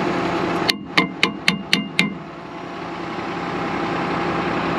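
Five quick metal-on-metal strikes, about four a second, each with a short ringing tone, as the snowblower is knocked on with a snow shovel used in place of a hammer. A steady engine hum runs behind and drops away briefly around the strikes.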